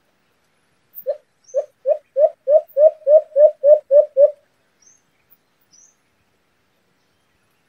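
White-eared brown dove (alimokon) calling: a run of about eleven low hooting notes that come quicker and grow louder, lasting about three seconds, with faint high chirps of other small birds around it.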